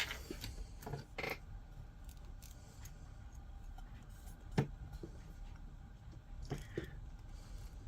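Scattered light clicks and taps of small 3D-printed plastic parts being handled while a tassel is fitted into the glued slots of a figure, the sharpest near the start and about four and a half seconds in.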